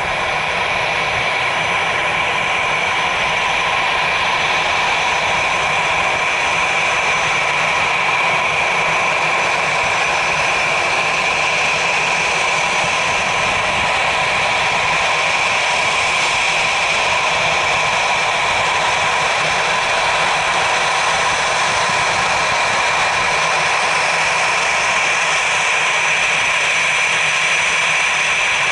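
Airbus A320's CFM56 turbofan engines running at low thrust as the airliner taxis close by: a loud, steady jet whine with several high held tones over a rushing hiss.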